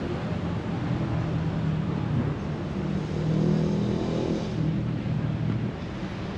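Busy road traffic, with a motor vehicle's engine running close by; it grows louder toward the middle and fades out near the end.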